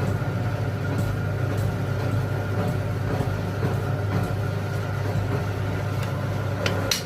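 A vehicle engine running steadily at idle with an even low hum. A few sharp clicks come near the end.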